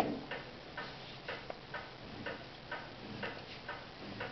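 Faint, regular ticking, about two ticks a second.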